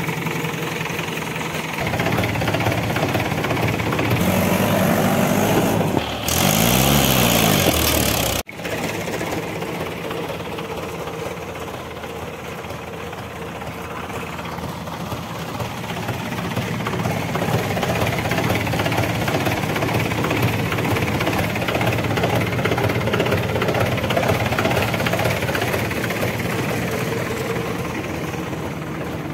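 Diesel engines of a backhoe loader and a farm tractor running steadily. About six seconds in, the engine sound rises and falls in pitch, and it breaks off suddenly before carrying on steadily.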